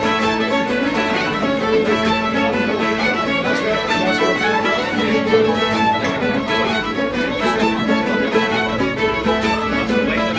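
Fiddle playing a lively jig with guitar and resonator tenor guitar accompaniment: a Scottish traditional session set of pipe jigs.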